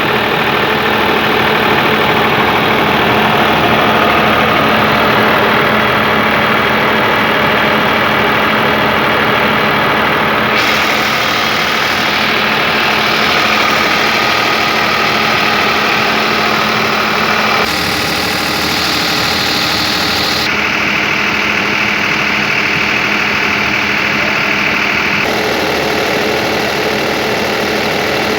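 Kirloskar Koel Green 30 kVA diesel generator running steadily at idle. Its tone changes abruptly a few times.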